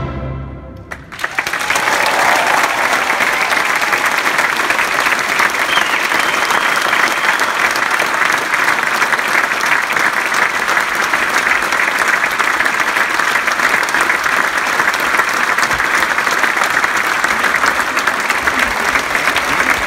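The symphony orchestra's final chord cuts off, and about a second in a large concert-hall audience starts applauding, a dense, steady clapping that keeps going.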